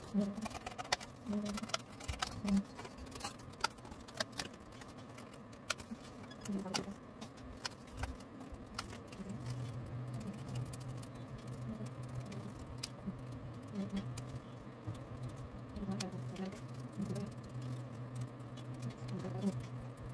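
Scissors snipping through thin cardboard in short, irregular cuts, with crisp clicks and rustling as the sheet is turned. A low steady hum comes in about nine seconds in.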